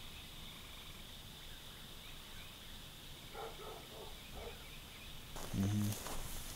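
Quiet night ambience with steady high insect chirring. A handful of short, distant animal calls come about halfway through. Near the end footsteps start crunching on a gravel path, with a brief low voice-like sound.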